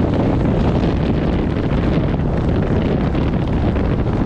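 Loud, steady wind buffeting the camera microphone. The airflow comes from gliding under an open parachute canopy during a tandem skydive descent.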